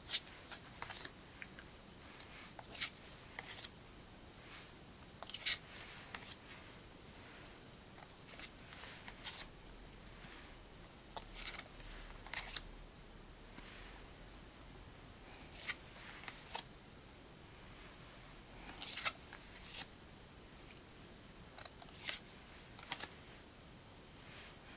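Stiff, glossy tarot cards being flicked through one at a time: short, irregular papery slides and taps as each card is slid off the deck and laid on a pile, every second or two.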